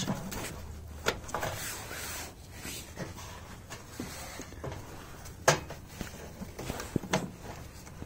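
Scattered knocks, scrapes and rustling of a gloved hand working among bent sheet metal and shredded cardboard inside a blown-apart washing machine drum while setting a firecracker in place. The sharpest knock comes about five and a half seconds in, with smaller ones near the start and near the end.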